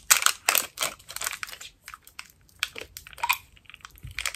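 Packaging wrap being crinkled and torn off a small body-spray bottle by hand, in short irregular crackles with brief pauses between them.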